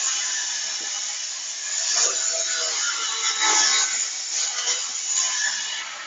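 Homemade chainsaw, an angle grinder driving a chainsaw bar and chain, running at speed and cutting through a log: a high motor whine under the rasp of the chain in the wood. The cut finishes near the end and the sound eases off.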